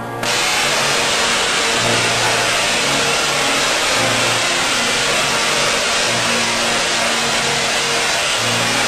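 Tesla coil discharging, a loud, steady crackling hiss of sparks that comes on at once and holds throughout. The coil is throwing racing sparks, which are typical of too high magnetic coupling between its coils.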